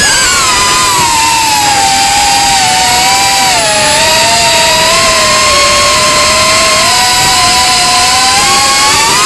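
Reptile Cloud 149 V2 FPV quadcopter's brushless motors whining in flight, with several overtones. The pitch dips gradually with the throttle through the middle and climbs again near the end.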